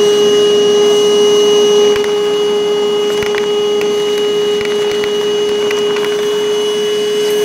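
Milwaukee M18 cordless toolbox vacuum running with a loud, steady whine as its hose sucks up 5/16 pan head bolts, which clatter sharply up the hose a few times from about two seconds in.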